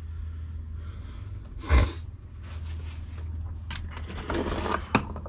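Metal hand tools being handled and set down on a cluttered workbench: a single clunk about two seconds in, then scraping and rattling with a few clicks near the end, over a steady low hum.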